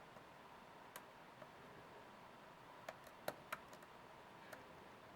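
Faint metallic ticks of a hook pick working the pin stacks inside an SFIC lock cylinder: about six small clicks, scattered singly and in a quick cluster around the middle.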